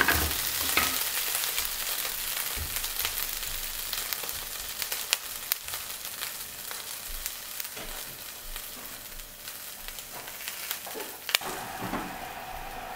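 Kelp and daylily buds sizzling in hot oil in a nonstick frying pan, with scattered small crackles. A wooden spatula stirs and scrapes at first, then is left in the pan while the sizzle slowly dies down.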